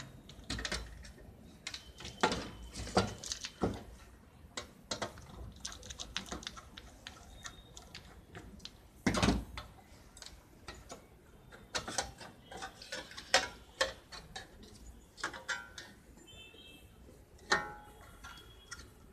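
Irregular metal clicks and knocks from a screwdriver backing screws out of an HP computer power supply's sheet-metal case and the cover being handled and lifted off, with one heavier knock about nine seconds in.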